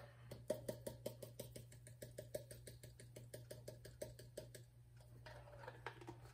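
Faint, rapid tapping and rattling, several taps a second, as a nearly empty jar of dried oregano is shaken over the pot; the tapping stops about a second and a half before the end.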